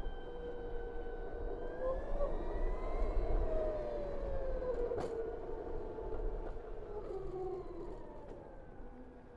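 BMW CE 04 electric scooter under way: the electric drive gives a whine of several tones that slowly rises and falls with speed, over a low rush of wind and road noise. A single sharp click comes about five seconds in.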